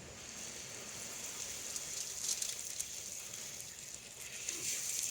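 Seasoned salmon fillets sizzling in hot butter in a pot: a steady frying hiss.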